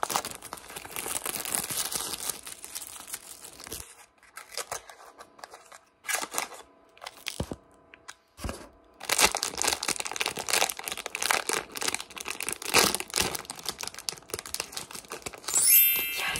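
Cardboard blind box of a Sonny Angel figure being torn open, then its foil wrapper crinkling and tearing in bursts with short pauses. A brief high vocal exclamation comes near the end.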